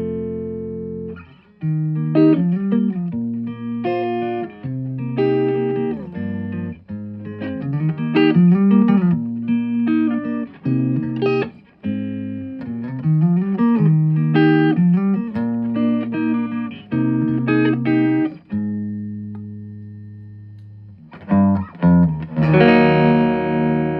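Electric guitar played through a Fender Bronco amplifier: a run of picked single notes with string bends and slides. Near the end a held note dies away, then a chord is struck and rings out.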